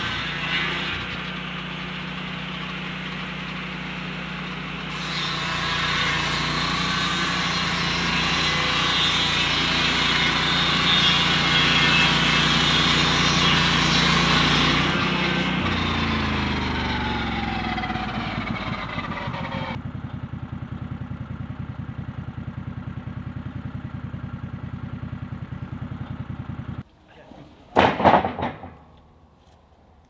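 Lucas Mill portable swing-blade sawmill's engine running at high speed with its circular blade cutting through a log, a loud hissing rasp over the engine from about 5 to 15 seconds. The pitch then falls as the engine throttles down, and it runs on at a lower, steady speed. Near the end it cuts off, and one short loud burst follows.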